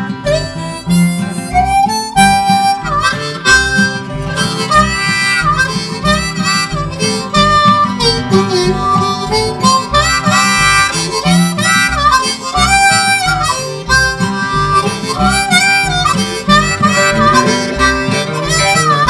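Instrumental break of a song: a harmonica plays a melody with bending notes over guitar and a steady beat.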